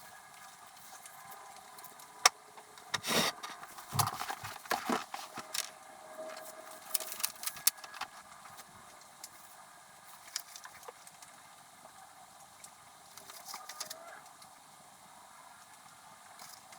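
Paper and stationery handled on a desk: irregular clicks, taps and rustling, with a run of louder knocks a few seconds in and again around the middle.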